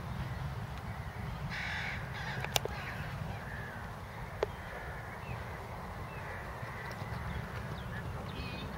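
Crows cawing a few times over a steady low rumble, with two sharp clicks about two and a half and four and a half seconds in.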